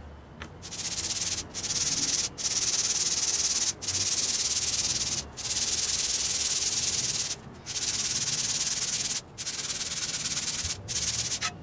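Cast iron sole of a Stanley Bailey No. 7 hand plane rasping back and forth on dry 220-grit sandpaper over glass, lapping it flat and scouring off rust. Long scraping strokes of one to two seconds each, with about seven short breaks as the stroke reverses.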